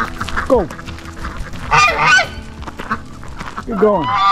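Domestic geese honking: one short falling call about half a second in, then a burst of several overlapping honks around two seconds and another near the end.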